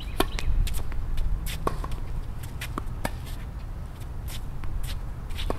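Tennis serve and rally on a hard court: a series of sharp racket-on-ball hits and ball bounces, spaced irregularly, over a steady low rumble.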